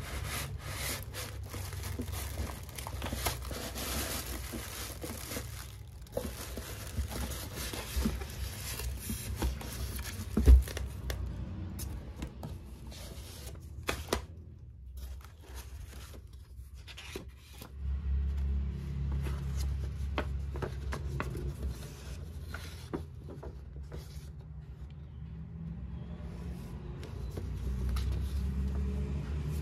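Cardboard box flaps and plastic wrapping rustling and crinkling as a small appliance is unboxed, then paper leaflets being handled, with one sharp knock about ten seconds in. Motorbike and car traffic rumbles underneath, swelling about two-thirds of the way through and again near the end.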